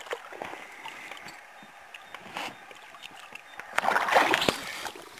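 Water splashing at the side of an inflatable boat as a hooked pike is grabbed by hand. There are light knocks and lapping at first, then a loud burst of splashing about four seconds in that lasts under a second.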